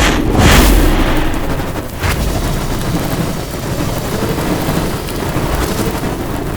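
Fire-burst sound effect: a sudden whoosh of flame, surging again about half a second and two seconds in, then a steady rush and crackle of burning fire.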